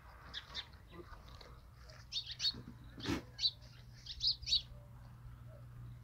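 Small birds chirping in short, high notes, several times and often in quick pairs, loudest in the second half. A brief knock comes about halfway through.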